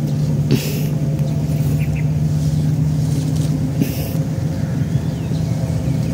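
A steady low mechanical hum, with two brief soft rustles of hands brushing dirt off freshly dug cassava roots, about half a second in and again near four seconds.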